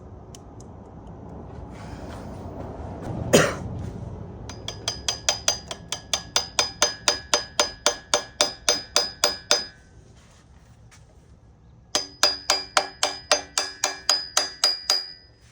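Hammer tapping on a stuck connecting-rod cap of a Mazda Miata engine to work it loose. There is one harder strike, then two runs of quick, even taps, about five a second, each with a metallic ring. The cap is stuck, which the owner puts down to a rod bearing that has broken up inside it.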